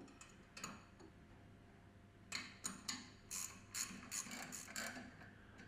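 Ratchet wrench clicking in a run of short strokes, about three a second, as the spacer coupling's bolts are fastened on a centrifugal pump.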